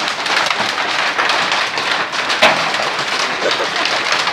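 Heavy hail pelting the ground: a loud, dense patter of hailstone impacts, with one louder hit about two and a half seconds in.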